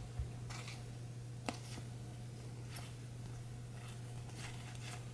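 Topps baseball cards being slid off a stack one at a time, making soft scrapes and light clicks every second or so, over a steady low hum.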